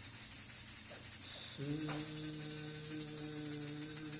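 Tambourine shaken fast and steadily, its jingles making a continuous shimmering rattle meant to imitate buzzing bees. A steady low hum joins in about a second and a half in.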